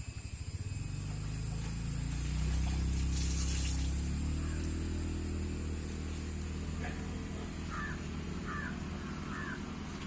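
A vehicle engine runs nearby with a low hum that swells over the first few seconds and then holds steady. Near the end come three short, high squeaks.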